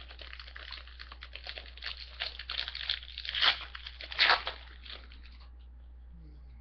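A trading-card pack wrapper being torn open and crinkled: a run of crackling and tearing that is loudest about three and a half and four seconds in and stops a little after five seconds.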